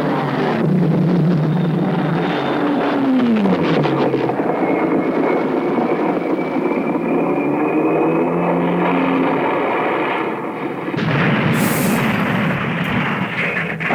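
Sound effects of an aerial dogfight between old propeller fighter planes: engines droning with a pitch that dives about three seconds in and climbs again later. About eleven seconds in, a louder, harsher burst of noise follows, like a crash.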